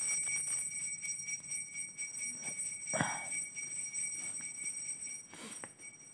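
Pencil writing on paper: a run of faint, short scratching strokes, with a couple of stronger strokes about three seconds in and near the end. A steady high-pitched whine of several tones sits under it throughout.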